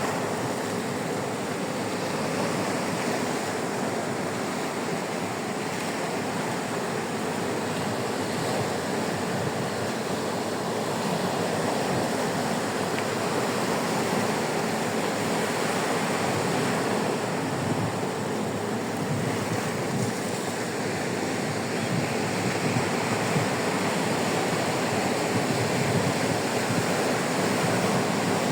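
Sea surf washing onto a sandy beach: a continuous rush of breaking waves that swells and eases slowly.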